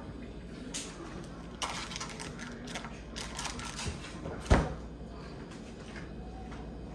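A metal utensil clicks and scrapes against a disposable aluminium foil roasting pan as pats of butter are set on the vegetables. There is a single loud knock about four and a half seconds in.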